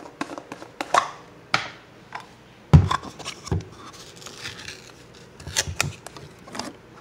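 Spoon scooping peanut butter from a jar: a series of irregular clicks, short scrapes and knocks, the loudest knock nearly three seconds in.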